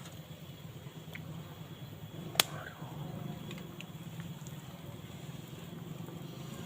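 Banana blossom cooking in a pan over a stove after a little water has gone in: a steady low rumble with faint ticks, and one sharp click about two and a half seconds in.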